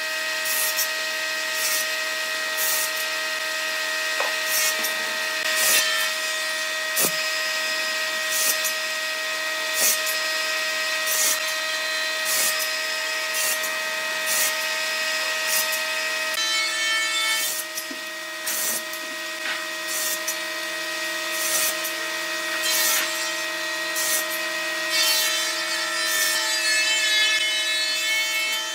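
Table saw blade on a combination woodworking machine running with a steady whine, cutting through small wood blocks again and again, one short cut about every second and a half as the sled is pushed across the blade.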